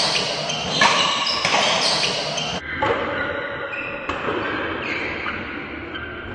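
Badminton rally: sharp racket strikes on the shuttlecock, a few in the first two seconds or so, with shoes squeaking on the court floor, echoing in a large hall.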